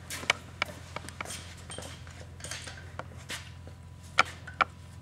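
Scattered light metal clicks and clinks as a disc brake caliper with its pads fitted is handled and brought up to the rotor, with two sharper clacks a little after four seconds in. A steady low hum runs underneath.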